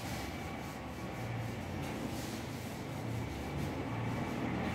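A whiteboard eraser rubbing back and forth across a whiteboard, wiping off writing in repeated strokes.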